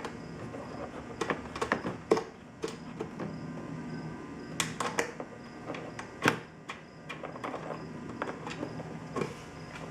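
Irregular clicks and light knocks of hardware being handled as the replacement side mirror is seated on the door and its mounting nuts are started on the studs.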